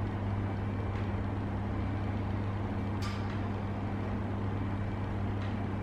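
Steady low hum with an even background rumble, with one brief sharp sound about three seconds in.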